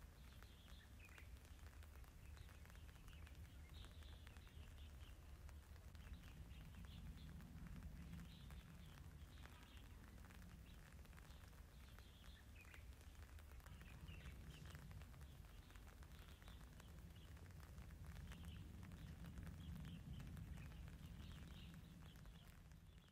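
Near silence with faint small-bird chirps scattered throughout, over a low rumble that swells and fades at times.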